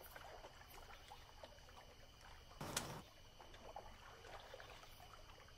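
Near silence: room tone, with one brief soft noise about halfway through.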